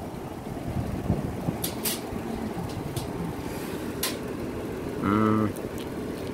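Steady low outdoor rumble of wind on the microphone, with a few sharp light clicks as a brass refrigerant hose quick-coupler is picked up and handled, and a brief voice sound about five seconds in.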